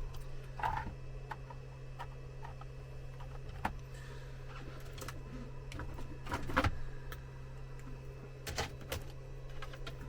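Scattered small clicks and rattles of cables and connector leads being handled and plugged in, over a steady low hum.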